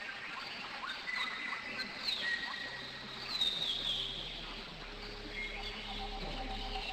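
Wild birds chirping and whistling in short, quick calls, one longer falling call a little over three seconds in, with a low steady hum coming in about halfway.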